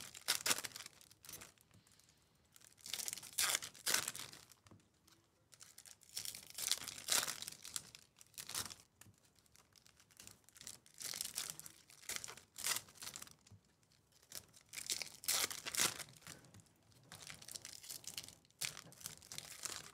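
Foil-wrapped Topps baseball card packs being torn open and their wrappers crinkled, in about seven short bursts a couple of seconds apart.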